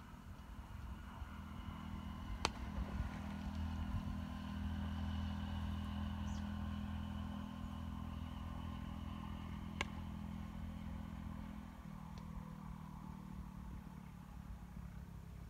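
An engine running steadily with a low hum, its pitch shifting slightly about twelve seconds in, with two sharp clicks along the way.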